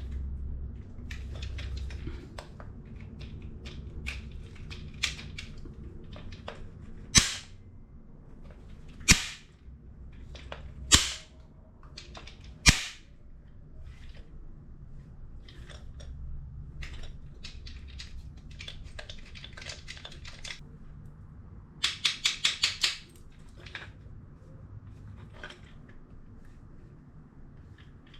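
A 200 A DC moulded-case circuit breaker being handled, with four loud sharp snaps about two seconds apart as its switch handle is operated, then a quick run of about six clicks a little past twenty seconds in. Quieter knocks and handling rustles come between.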